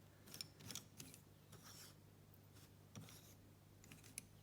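Faint scratchy strokes of handwriting on paper, a few short strokes, over a steady low hum.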